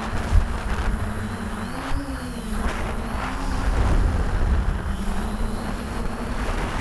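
Six Propdrive 28-30S 900KV brushless motors spinning 10x5 props on a DJI F550 hexacopter in flight, heard from a camera on the frame. A steady motor hum swings up and dips in pitch around two and three seconds in as the throttle changes, over a low uneven rumble.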